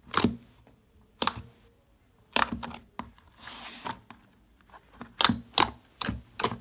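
Thick, glossy marshmallow fluff slime being pressed and poked by hand in a plastic tub, giving sharp wet pops and clicks as trapped air pockets burst. The pops come irregularly, with a short squishy hiss about halfway through and several pops close together near the end.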